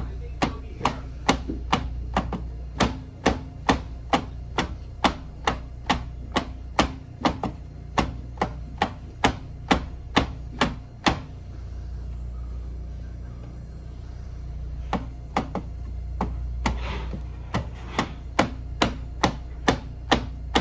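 Instep of a socked foot kicking a worn wooden board in a steady rhythm of about two knocks a second: haisoku geri (instep kick) conditioning. The kicks pause for about four seconds midway, then resume, over a low steady hum.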